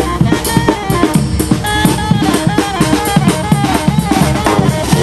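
Street parade brass band's drum section playing a fast, driving beat on snare and bass drum, with short melody notes over the top.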